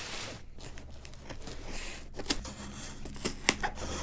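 Scissors slitting a parcel's packing tape and the tape and wrapping being torn open, a ripping sound at the start followed by scattered sharp snaps and crinkles.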